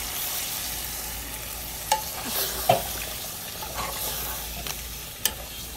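Water being poured into a hot pot of curry, sizzling as it hits the masala, while a large metal spoon stirs, knocking sharply against the pot about two seconds in, again soon after, and once near the end.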